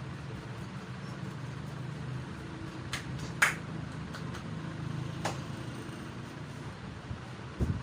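A masseur's hands during a head and shoulder massage: a few short, sharp snaps or slaps, the loudest about three and a half seconds in, and a dull thump near the end, over a steady low background hum.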